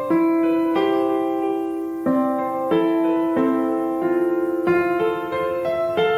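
Background piano music: a slow run of single notes and chords, each struck and left to ring out.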